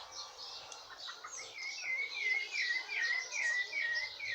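A bird singing: a run of short, evenly repeated chirps, about three a second, starting about a second and a half in, over fainter, higher chirping.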